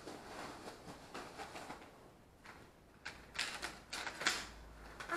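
Rustling and crinkling of paper packaging and a cardboard box as items are lifted out, with a few louder rustles in the second half.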